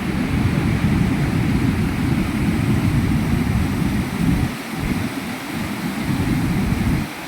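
Rushing water with a heavy, churning low rumble and a fainter hiss above it. It dips briefly about four and a half seconds in and again near the end.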